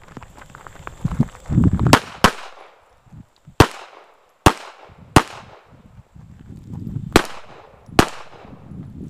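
A Tanfoglio Stock II 9mm pistol firing seven shots: a quick pair about two seconds in, then single shots spaced roughly a second apart, each ringing out briefly.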